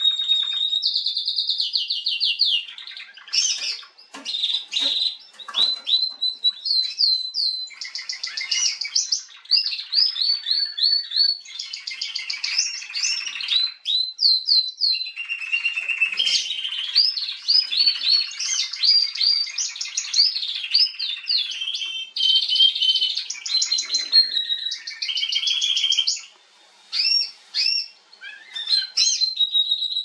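Female Atlantic canary singing a long, high-pitched song of fast trills and rapidly repeated chirping notes, with brief pauses about four seconds in and again near the end.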